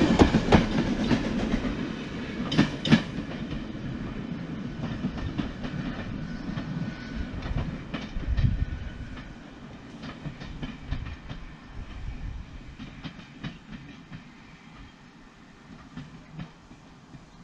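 Railway carriage wheels clicking over rail joints under a low running rumble. It is loudest in the first few seconds, then the clicks grow sparser and the rumble fades away.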